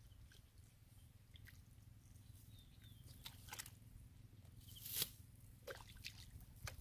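Faint wet squelches and drips of bare feet and a digging tool in shallow mud and water, a few scattered clicks and one louder squish about five seconds in, over a low steady hum.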